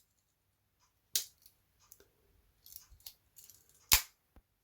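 Small metal clicks from the tools of a Victorinox Huntsman Swiss Army knife being handled: one click about a second in, a few soft ticks a little later, and a sharp, louder click near the end.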